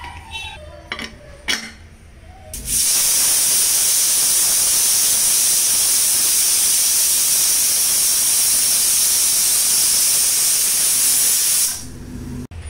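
A few clicks as a Hawkins pressure cooker's lid handle is locked shut, then, about three seconds in, steam hisses loudly and steadily from the cooker's weight valve for about nine seconds before cutting off suddenly: the cooker has come up to pressure and is letting off a whistle.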